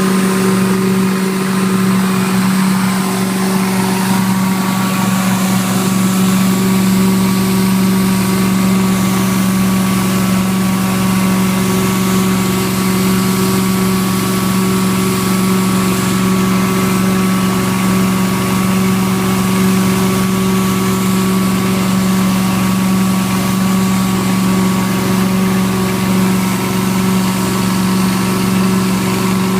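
MyTee T-Rex rotary carpet extractor running: a steady, loud motor hum with a rushing hiss over it, unchanging throughout.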